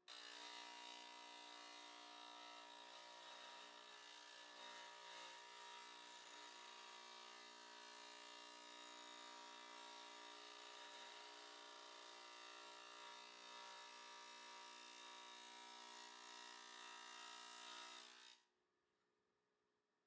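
Faint electric shop machine running with a steady motor hum over a hiss while a ribbed steel plate is worked against it; the sound starts suddenly and cuts off about eighteen seconds in.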